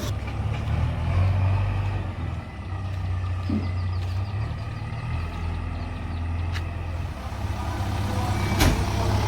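Diesel engine of a JCB 3DX backhoe loader running, its level rising and falling as it works, with two sharp knocks in the second half.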